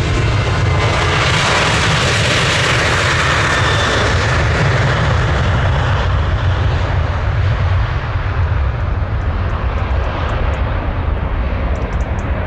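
Twin jet engines of a Ryanair Boeing 737 running at high power as the airliner rolls along the runway, loudest a couple of seconds in and fading as it moves away.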